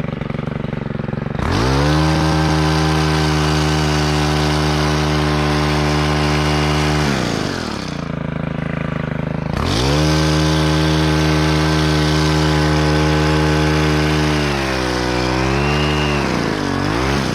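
Gas hedge trimmer's small two-stroke engine revved from idle to full throttle and held for about five seconds, dropped back to idle, then revved up again, the speed wavering up and down near the end.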